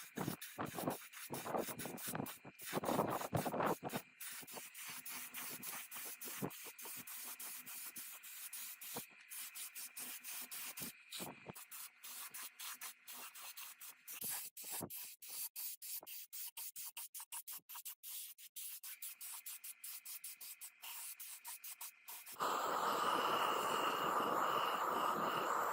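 Hand rubbing or sanding on engine parts during a restoration: rapid, irregular scraping strokes. About three-quarters of the way through, a louder steady noise with a high whine starts suddenly and keeps going.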